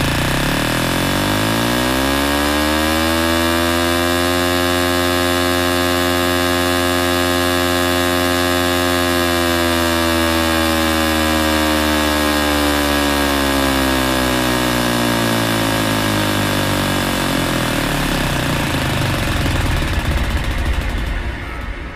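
Electronic bass music: a buzzing, heavily distorted synthesizer drone that glides up in pitch over the first few seconds, holds, and glides back down about two-thirds of the way through. A noisy build follows and falls away at the very end.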